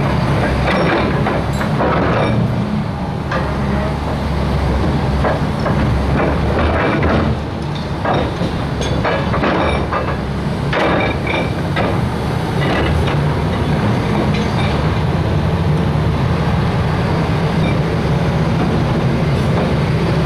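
Caterpillar EL200 excavator's diesel engine running steadily, with repeated metal clanks and squeals from the machine as it moves, mostly in the first two-thirds.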